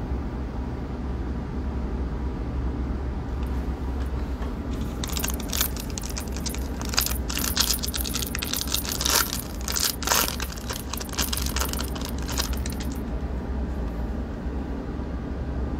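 Shiny foil Bowman Chrome trading-card pack wrapper being torn open and crinkled by hand: a dense run of sharp crackles starting about five seconds in and stopping a few seconds before the end.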